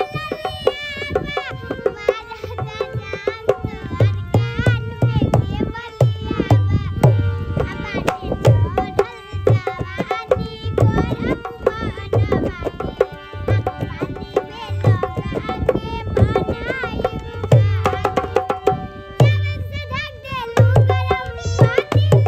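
A girl singing a Bhojpuri folk song to harmonium accompaniment, with a hand drum keeping a steady beat.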